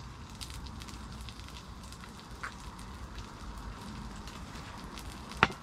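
Fish faintly crackling and sizzling as it is reheated on a camp stove, with a sharp click about five seconds in.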